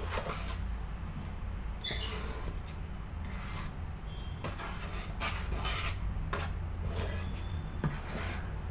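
Wooden spatula stirring and scraping a dry mix of rice flour, tapioca flour, sugar and salt around a coated wok, in many irregular rasping strokes over a steady low hum.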